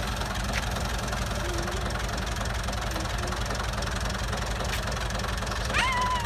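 Ford farm tractor engine idling with a steady, even low knock. A brief high call rises and then holds near the end.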